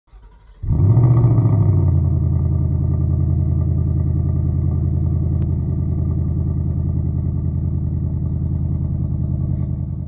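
2020 Ford Mustang GT's 5.0 L V8 on its stock exhaust, starting up. It catches about half a second in and flares up in revs for a second or so, then settles into a steady, pulsing idle.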